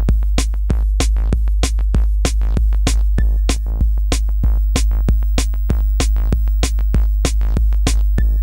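Electronic music: a drum-machine beat of about four sharp hits a second over a steady deep bass.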